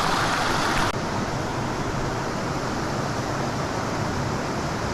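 Steady rushing of a trout creek's flowing water. The sound is a little brighter for about the first second, then drops suddenly to a lower, even level.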